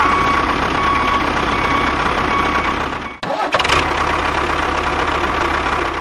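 Engine running steadily, with a brief break in the sound about three seconds in.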